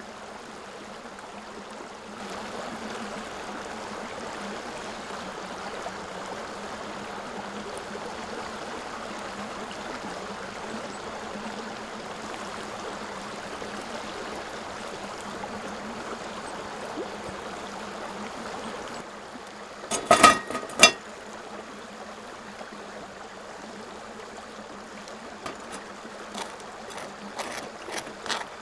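Hot water poured in a thin steady stream from a gooseneck kettle onto coffee grounds in a paper pour-over filter, trickling and gurgling; it grows louder about two seconds in and stops at about nineteen seconds. A few sharp knocks follow about twenty seconds in, and near the end a metal knife clicks and scrapes as butter is spread on toast on a plate.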